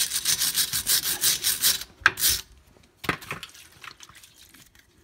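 Wire brush scrubbing corrosion off the rear shock absorber's lower mounting bolt and bracket on a 2018 Honda HR-V, in fast back-and-forth strokes for about two seconds, then a louder scrape and a few short strokes about three seconds in.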